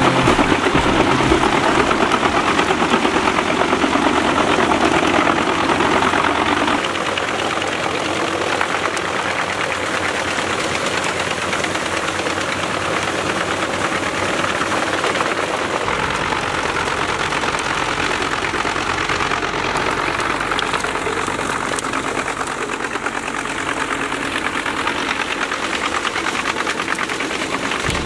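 Pezzolato PTH 1200/1000 G drum wood chipper, driven off a tractor's PTO, chipping branches and brush fed in by a crane grapple. A dense, steady crackling machine noise of wood being cut, louder for the first seven seconds or so.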